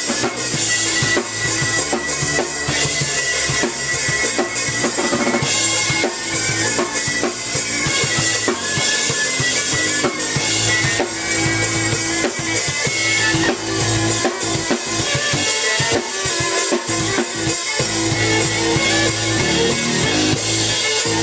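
Live band music: a drum kit playing a busy beat with kick and snare under held, sustained melody lines from an electric violin and keyboard.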